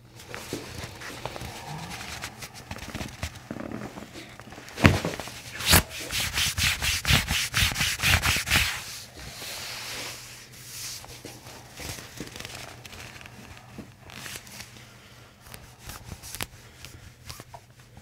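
Hands rubbing and pressing on a person's back through a shirt, a quick rhythmic run of rubbing strokes about four a second a few seconds in. Two sharp clicks come just before the run.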